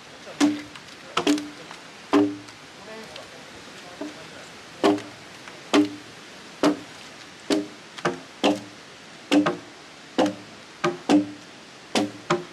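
Repeated strikes of a hand hewing blade biting into a Japanese cedar log, about one a second and slightly uneven, each a sharp chop with a short, hollow woody ring.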